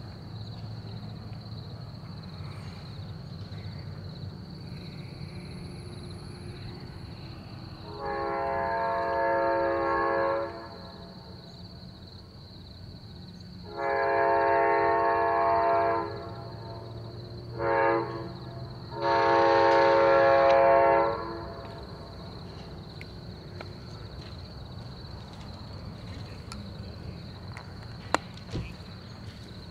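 Amtrak P42DC diesel locomotive's air horn sounding in the distance in the grade-crossing pattern: two long blasts, a short one, then a final long one. This signals that the train is approaching a road crossing.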